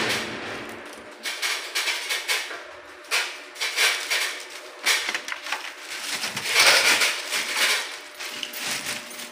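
Plastic packaging crinkling and rustling in irregular bursts while wall-fan parts are handled, with light clinks of the metal wire guards; the loudest stretch of crinkling comes a little past the middle.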